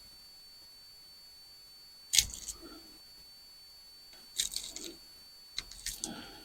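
Wire cutters snipping through wires in a ceiling fan's frame: one sharp snip about two seconds in, then clusters of smaller snips and clicks near the end.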